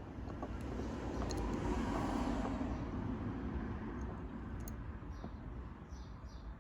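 A vehicle passing by: a low rushing noise swells to its loudest about two seconds in, then slowly fades.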